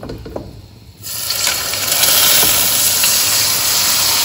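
Cold milk and semolina poured into hot caramelised sugar syrup in a wok: a sudden loud sizzling hiss starts about a second in and holds steady as the syrup bubbles up.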